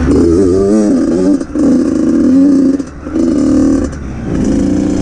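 Dirt bike engine, heard close from the bike itself, blipped in about four short bursts of throttle, its pitch rising and falling back between them.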